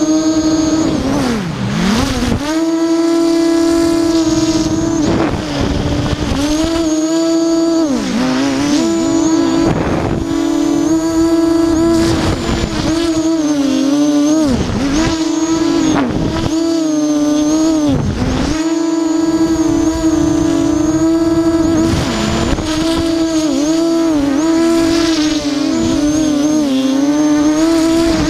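Brushless motors and propellers of an Armattan Tilt FPV quadcopter whining loudly, heard from on board, the pitch dropping and climbing back again every second or two as the throttle is chopped and reopened.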